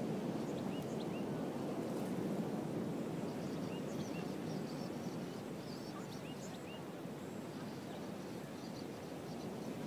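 Steady low rushing beach ambience, with short faint bird chirps scattered through it.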